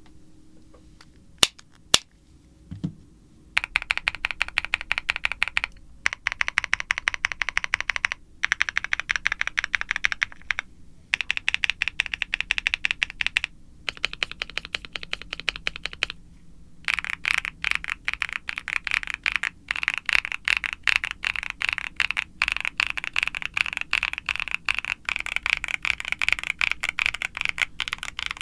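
Fast typing on a CreateKeebs Luminkey75 mechanical keyboard: an aluminium case with a polycarbonate plate and foam dampening, lubed Akko Creamy Lavender Pro tactile switches, and PBT keycaps. Two sharp clicks and a low knock come in the first three seconds. The typing then runs dense and quick, stops briefly a few times, and goes on without a break over the last ten seconds or so.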